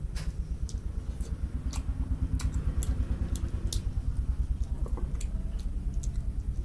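Eating sounds: scattered short wet clicks and smacks of chewing and of fingers working rice on a plate, over a steady low hum that pulses rapidly several times a second.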